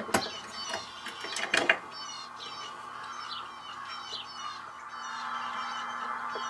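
Sharp metal clicks and a short rattle from a brass model switch stand as its padlock and chain are undone and its lever is lifted, turned and dropped back, near the start and again about a second and a half in. Behind them, birds chirp and call steadily.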